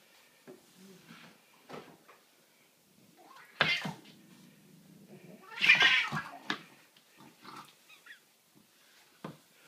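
A domestic cat vocalising during rough play, loudest in two cries about three and a half and six seconds in, amid short scrapes and taps of a push broom's bristles on a laminate floor.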